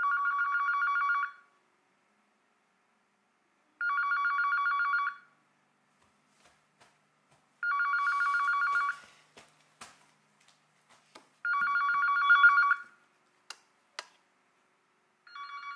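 Smartphone ringtone playing a classic telephone-bell trill: rings of about a second and a half, repeating roughly every four seconds, five in all, the last one quieter. A few faint clicks and knocks between the middle rings.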